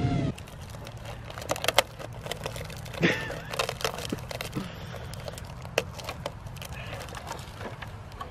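Scattered crackling and clicking as a crashed 3D-printed PLA plastic flying wing and its tape are handled and picked up. The sharpest cracks come about two seconds and three seconds in.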